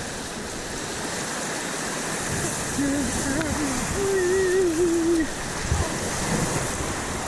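Creek whitewater rushing steadily. A brief wordless voice with a wavering pitch rises over it about three seconds in and stops about two seconds later.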